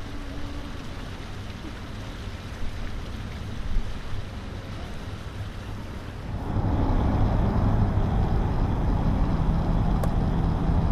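Wind buffeting the microphone outdoors: a steady rushing rumble that becomes much louder and deeper about six seconds in, with a single click near the end.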